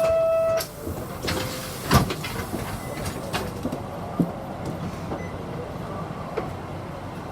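Inside a Nishitetsu city bus: a short electronic beep at the start. A steady low rumble runs beneath it, with a loud knock about two seconds in and scattered rattles and clicks.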